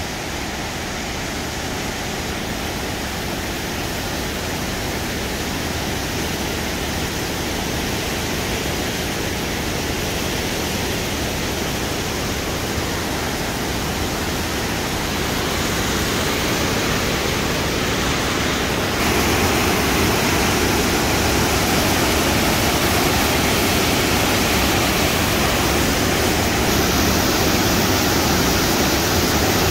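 Rushing whitewater of a mountain river pouring over rocks and boulders: a steady roar of water that grows gradually louder, with a step up about two-thirds of the way through.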